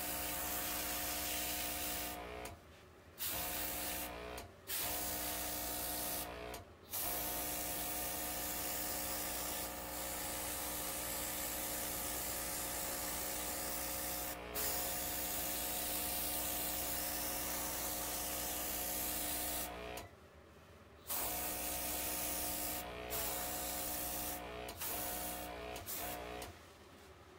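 OPAWZ airbrush spraying temporary ink: a steady hiss of air over the hum of its small electric compressor. The spray stops and restarts several times as the trigger is released and pressed again, with a longer break about two-thirds of the way through, and it stops shortly before the end.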